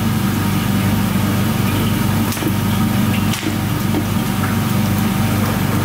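A steady low mechanical hum, like a motor running, with a few faint clicks over it.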